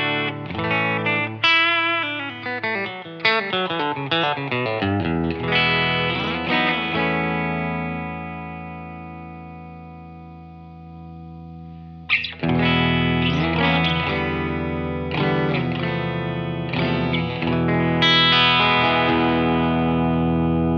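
Electric guitar played through an LPD Pedals CLE-304 optical compressor pedal: a quick run of picked notes, then a chord left to ring that slowly fades for several seconds. About twelve seconds in a strummed chord cuts in, more chords follow, and a last chord is held near the end.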